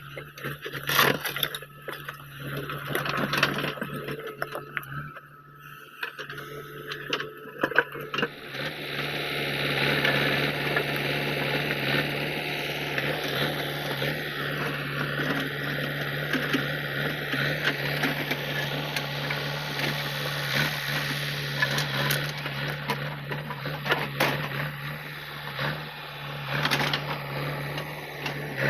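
JCB 3DX backhoe loader's diesel engine running, with sharp knocks, cracks and scrapes of stones against the steel bucket in the first several seconds. From about eight seconds in the engine runs louder and steadier under load, with occasional knocks.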